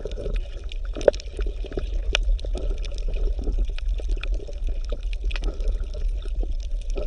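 Water bubbling and gurgling: a steady wash of many small pops and plops over a low hum.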